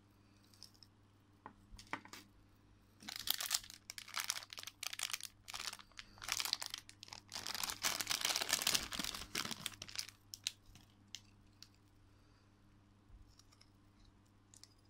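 Thin clear plastic packaging bag crinkling and tearing as it is pulled open by hand, in bursts from about three seconds in until about ten seconds, busiest shortly before it dies down. A few faint ticks follow as the keychain is handled.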